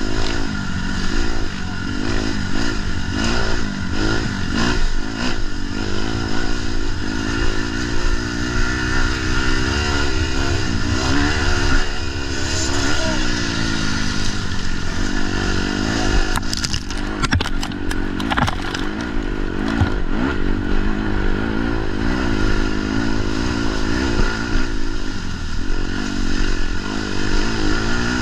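Snowmobile engine running hard, its pitch rising and falling as the throttle opens and closes. Partway through, a few seconds of clattering and scraping over rough ground.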